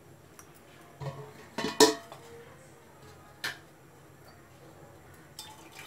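A few short metallic clinks and knocks from a stainless steel pot on a gas stove, the loudest about two seconds in.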